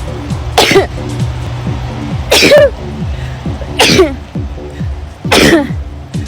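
A woman sneezing four times in quick succession, about one and a half seconds apart: a sun-triggered sneezing fit. Background music plays underneath.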